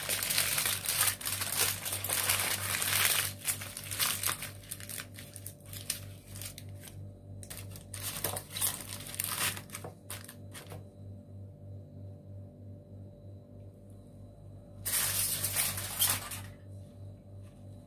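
Aluminium foil crinkling and crackling as it is folded by hand into a packet. It is dense for the first few seconds, then comes in scattered crackles, goes quiet for a few seconds, and bursts again near the end. A steady low hum runs underneath.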